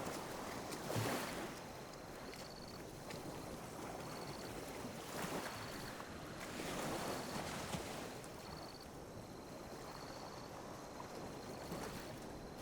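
Small sea waves lapping and washing on a beach, swelling and ebbing several times. A faint high chirp repeats about once a second.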